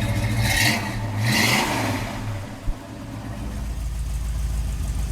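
Classic American V8 muscle-car engine idling, revved twice in quick succession about half a second and a second and a half in, then settling back to a steady low idle.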